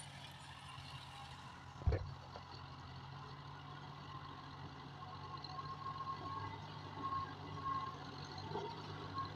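Tractor engine running steadily, growing a little louder in the second half, with a single sharp thump about two seconds in.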